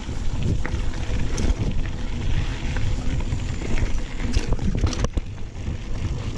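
Wind buffeting an action camera's microphone as a mountain bike rolls down a dirt trail, a steady low rumble with scattered sharp knocks and clicks from the bike rattling over the ground.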